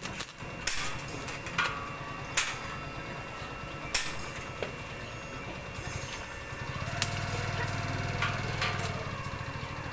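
A few sharp knocks of metal work scattered through. A low, steady motor hum comes in about two-thirds of the way through.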